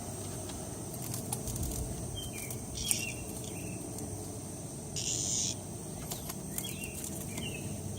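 A cicada held in a dog's mouth gives a short buzz lasting about half a second, about five seconds in. Behind it is a steady high insect drone, with a few short bird chirps scattered throughout.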